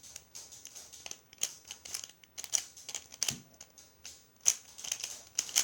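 Plastic Pyraminx puzzle being turned quickly during a timed solve: its pieces click and clack irregularly, about three turns a second, with a brief pause about four seconds in.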